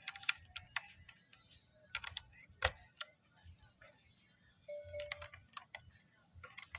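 Plastic keycaps being pressed back onto a Redragon mechanical keyboard's switches: irregular clicks and snaps, the loudest about two and a half seconds in.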